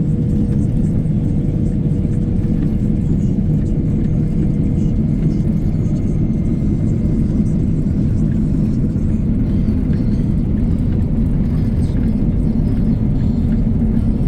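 Engine of a mowing machine running steadily at constant speed, a continuous low rumble, with a faint steady whine that stops about five seconds in.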